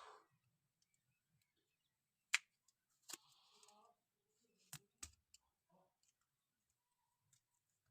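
Near silence broken by four or five short, sharp clicks, the loudest about two and a half seconds in: small handling clicks as the repaired phone and charger are handled for the charging test.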